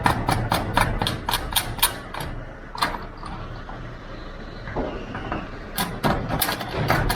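Rapid, even metallic clicking of a ratchet spanner running a nut onto a lock's threaded stud, about five clicks a second. It stops about two seconds in, with a few separate knocks in the pause, and starts again about six seconds in.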